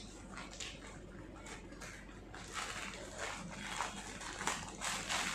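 Plastic courier mailer bag crinkling and rustling as it is pulled and torn open by hand, the rustling getting louder and busier about halfway through.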